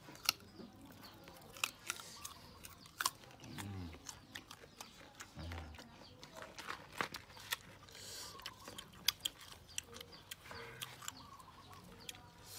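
Faint, scattered crisp clicks and scrapes of knives cutting and peeling firm green ambarella fruit and of the fruit being pressed into a stone mortar. A few short low grunts come in about four and five and a half seconds in.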